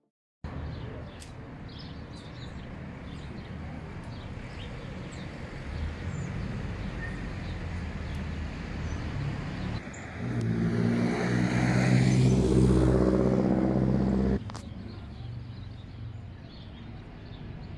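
A motor vehicle's engine running with road noise, growing louder over several seconds into a steady engine hum, then cut off suddenly, leaving quieter background noise with faint chirps.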